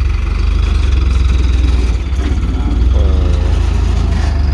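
Engine of the sand delivery lorry running steadily at low revs, a deep, even drone.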